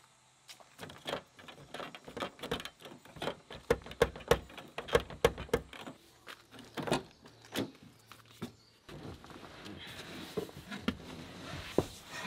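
Quick clicks and clacks, two or three a second, of a 1998 Toyota Tacoma's outside door handle and latch being worked by hand; the latch does not release, since the driver door won't open from the outside. After about nine seconds the clicking stops and a steady hiss remains, with a few single knocks.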